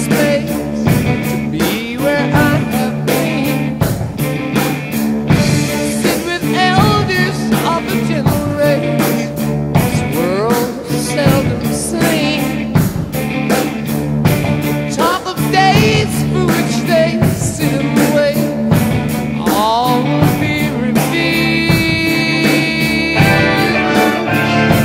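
Rock song with singing over a steady beat.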